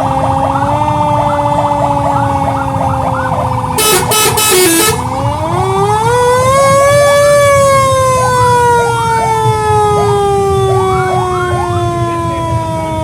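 Fire truck siren wailing, its pitch slowly falling, then sweeping up again about five seconds in and falling slowly once more. Short repeated chirps sound over it, with a brief harsh blast about four seconds in.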